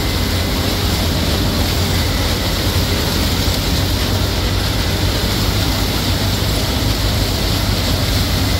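John Deere CH570 sugarcane harvester working in cane, mixed with the tractor hauling the infield wagon alongside: a loud, steady machinery rush over a low engine hum that does not let up.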